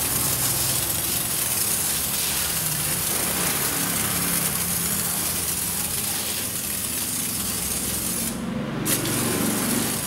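Hand-pump pressure sprayer hissing steadily as it sprays soapy cleaning solution as foam onto a car's felt wheel-arch liner, a pre-soak to loosen dirt bonded into the felt. The spray breaks off briefly about eight seconds in and resumes. A low steady hum runs beneath it.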